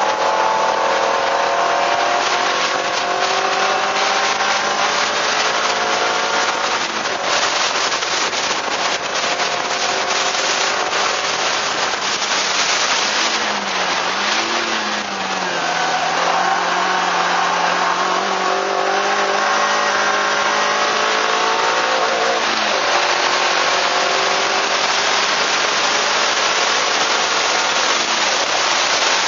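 Suzuki Swift Sport's four-cylinder engine pulling hard on track, its note climbing in several long rising sweeps broken by gear changes. A falling, wavering stretch near the middle comes as the car slows and then pulls again. Heavy wind and road noise run underneath.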